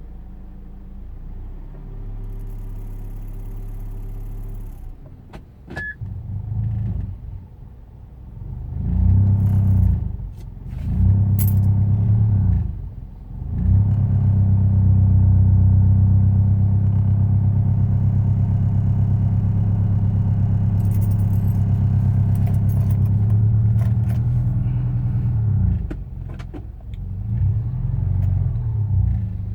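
Proton Inspira's four-cylinder petrol engine running cold, unevenly, its level swelling and dropping several times with brief dips. This is the knock and misfire that the owner says it has when started cold and that goes away once warm. A few sharp clicks are heard near the start.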